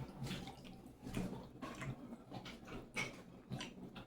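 Close-up chewing and wet mouth sounds of a person eating, with irregular small clicks and smacks.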